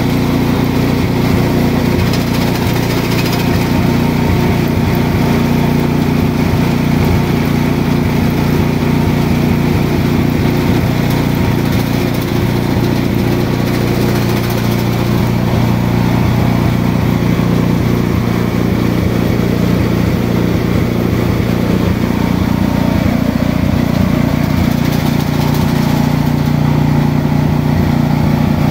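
A small engine-driven indigo sorting machine running steadily at a constant pitch as harvested indigo is fed through to separate the leaves from the stems.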